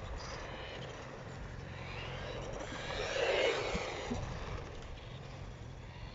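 Wltoys L969 RC car's brushed electric motor and tyres on concrete, the whine and rolling noise swelling to a peak about three and a half seconds in and fading as it passes close, over a steady low wind rumble.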